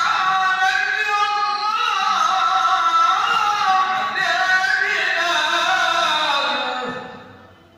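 A man's solo unaccompanied Islamic devotional chant, one long ornamented phrase winding up and down through held notes, dying away about seven seconds in.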